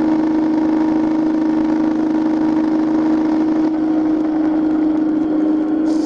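Jet boat engine running at speed at one constant pitch, with a rush of wind and water spray over it.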